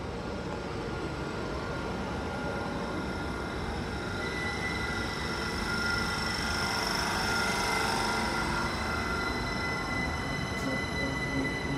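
Heathrow Express Class 387 Electrostar electric train moving slowly along the platform: a steady rumble of wheels on rail, with several thin, steady high tones that swell from about four seconds in and ease off near the end.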